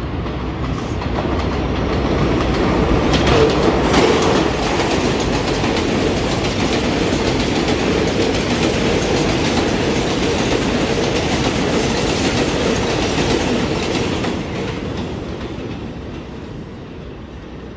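R142 subway train running past on elevated steel track. The noise builds over the first few seconds, is loudest as the cars pass close about four seconds in, and fades from about fourteen seconds as the train pulls away.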